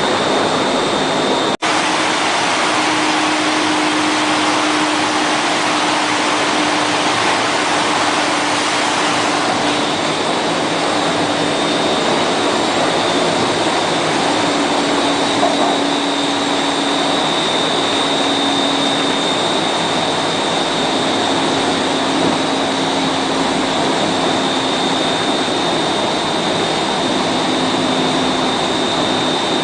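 Glass tempering furnace line running: a loud, steady rush of machine air noise with a thin high whine and a low hum that comes and goes. It cuts out for an instant about one and a half seconds in.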